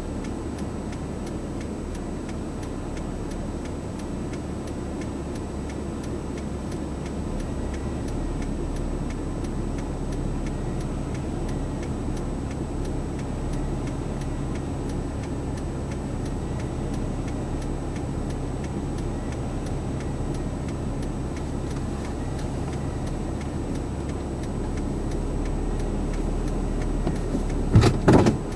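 Steady low rumble of a car's running engine heard from inside the cabin, with faint regular ticking over it. A sharp knock sounds near the end.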